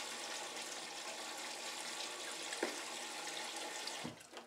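Water running steadily into a Toto electronic toilet's bowl and stirring the standing water, then cutting off suddenly about four seconds in.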